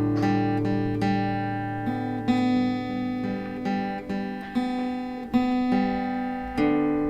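Background music: acoustic guitar playing plucked notes and chords at a steady pace.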